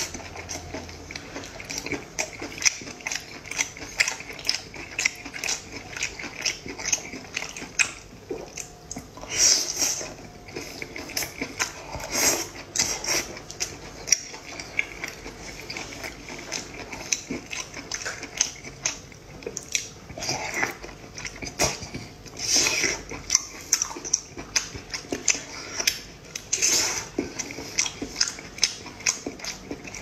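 Close-up eating sounds of a person chewing braised octopus: wet, sticky chewing and lip smacks, with several longer slurps as tentacles are sucked in, and light chopstick clicks against the plate.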